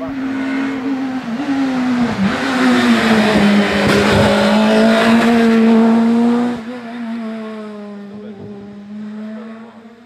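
Rally car engine at full throttle on a special stage. The engine note dips briefly twice early on as the car changes gear, is loudest around the middle, then falls away sharply as the car heads off round the bend and fades.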